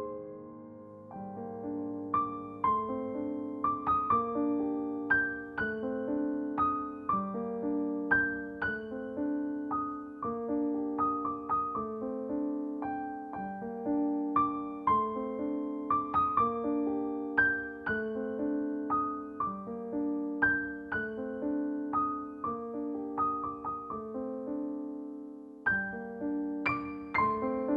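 Background music: gentle solo piano playing a slow, repeating arpeggiated pattern of notes.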